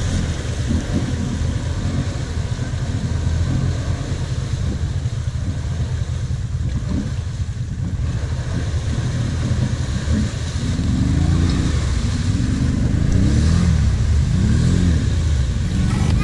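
Quad (ATV) engines running in a mud pit: a steady low engine rumble, with one engine revved up and down again and again from about ten seconds in as the quad works through deep mud.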